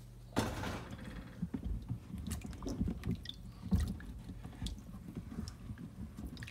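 Hands rubbing and turning apples in a plastic bowl of water: irregular wet squelches, small splashes and soft knocks of fruit against fruit and the bowl.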